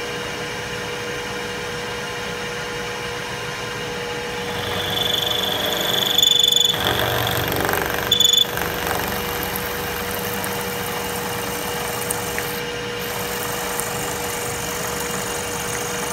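Milling machine spindle running steadily while an end mill cuts into a metal part. A high-pitched cutter squeal rises about five seconds in, lasts roughly two seconds, and returns briefly near eight seconds as the cut gets louder.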